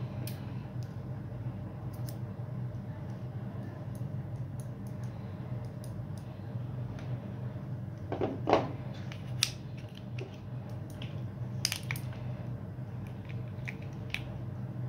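Small clicks, taps and a short scrape of plastic and metal parts being handled as a plastic pull-start recoil starter is fitted to the aluminium crankcase of a small 2.5cc model nitro engine, over a steady low hum. The loudest sound is the brief scrape about eight and a half seconds in.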